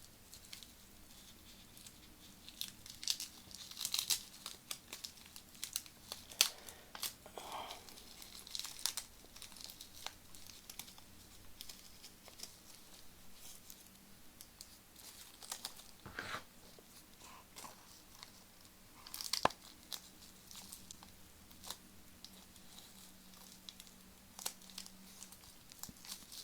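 Packaging being torn open and crumpled by hand: intermittent paper rustling, tearing and small clicks.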